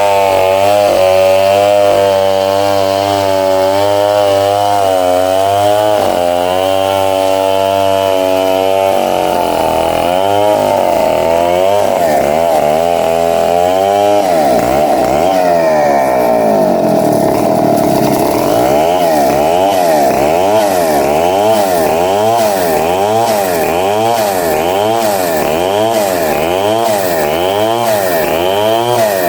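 Vertical bandsaw running and cutting through timber: a loud, continuous machine sound whose pitch warbles up and down throughout, changing its pattern about a third of the way in and again around halfway.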